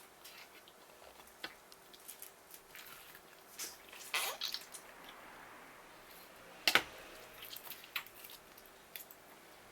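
Wet kitchen handling sounds of blowfish being prepared: scattered squelches and light clicks, with a sharper knock about seven seconds in.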